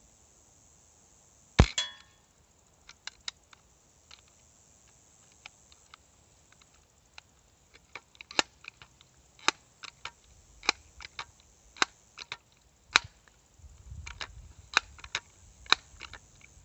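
A single air gun shot, a sharp crack with a brief rattle after it, about a second and a half in. It is followed by a string of quieter sharp clicks, roughly one a second.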